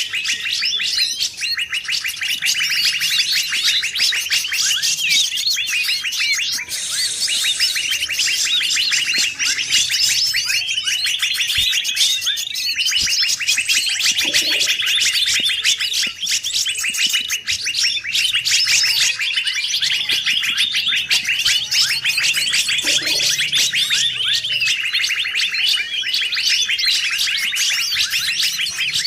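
A layered mix of many forest songbirds calling at once: dense, rapid chirps and trills overlapping without pause. It is a bird-lure (pikat) recording, played to draw wild songbirds in.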